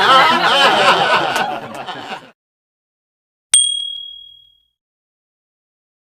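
A crowd of people laughing, cutting off about two seconds in. A second later comes a single high bell ding that rings out and fades over about a second.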